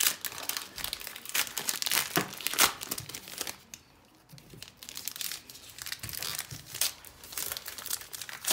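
Trading card packs being torn open and their wrappers crinkled in quick succession, a run of sharp crackles with a brief lull a little before halfway.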